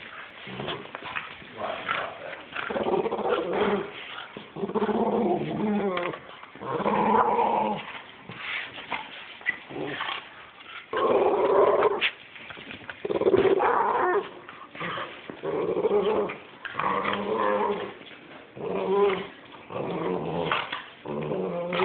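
A Boston terrier and a French bulldog growling in repeated bursts of a second or so each, about every two seconds, while they play tug-of-war over a rope toy: play growling.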